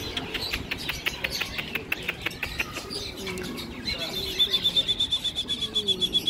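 Caged small songbirds chirping: a dense string of short high chirps, then from about four seconds in a fast, even, high-pitched trill. Low cooing sounds lie underneath.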